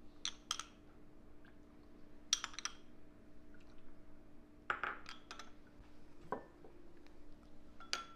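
Light, scattered clinks and taps of a spoon against glass and ceramic dishes, about half a dozen over several seconds, as the dipping sauce is put together. A faint steady hum runs underneath.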